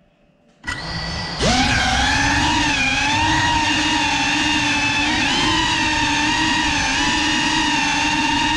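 GEPRC Cinelog 35 cinewhoop's motors and ducted propellers: the motors start idling with a low hum under a second in, then spin up with a quick rising whine as the drone takes off. After that comes a loud, steady whine of several layered tones that wavers slightly in pitch with the throttle.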